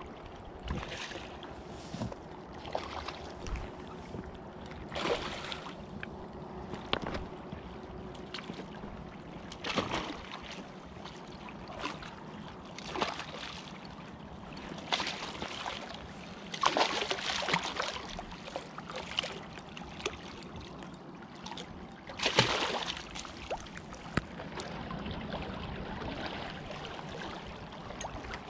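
Hooked asp splashing at the water's surface as it is played close to the bank, in irregular bursts every second or few, over a steady wash of river water.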